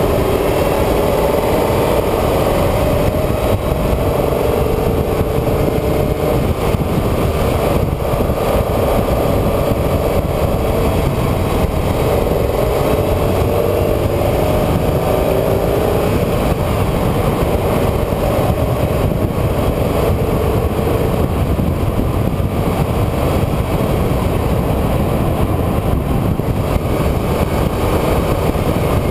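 A vehicle's engine running under way, its pitch rising and falling as it speeds up and slows, over a heavy steady rumble of wind and road noise.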